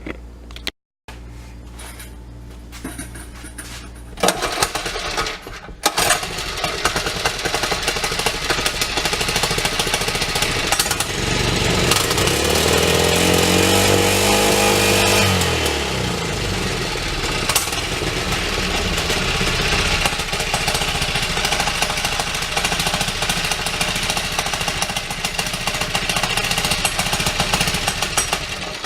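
Small 97 cc single-cylinder mini-bike engine running, coming in about four seconds in and revved up and back down once about twelve seconds in. The throttle is back on its old return spring.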